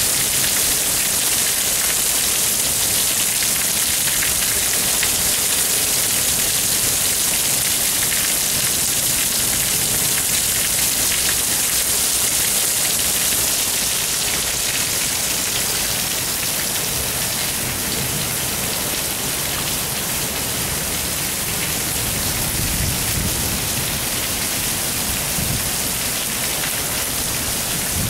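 Heavy downpour: rainwater overflowing a full roof gutter and pouring off the eaves in a steady splashing sheet, with rain falling all around. The sound eases a little about halfway through.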